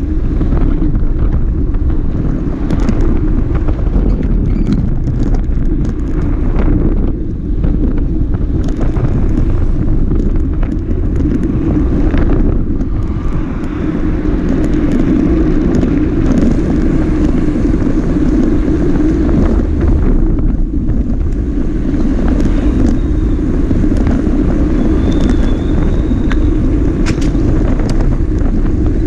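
Wind buffeting the microphone of a moving motorcycle, with the engine and road noise running steadily underneath.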